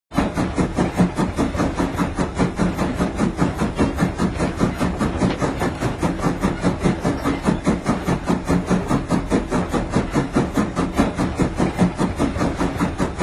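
Train running: a fast, even pulsing rhythm that starts abruptly and holds steady.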